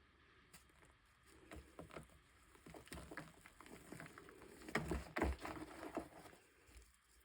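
Light, irregular crackling and tapping, loudest in a short cluster about five seconds in.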